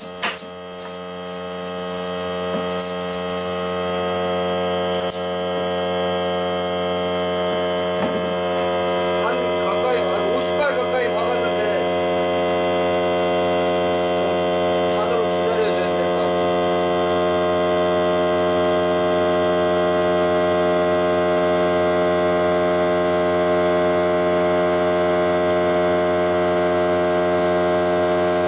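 Greenworks 40V cordless air compressor's motor running, a steady hum made of many layered tones that swells over the first few seconds and then holds even: the compressor building its tank back up to pressure after the air tacker has been fired.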